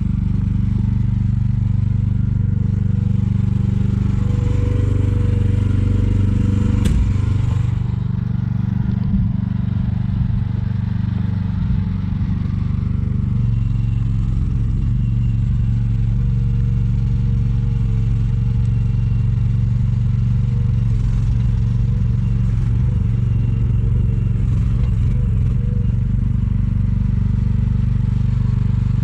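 Engine running steadily, with one sharp knock about seven seconds in.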